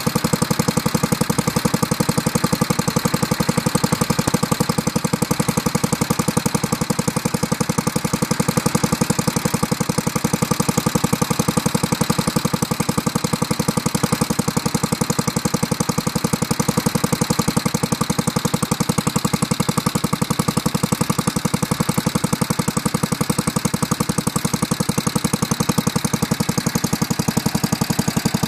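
Gibson Model D garden tractor's single-cylinder air-cooled engine idling steadily, its firing pulses coming in a fast, even beat.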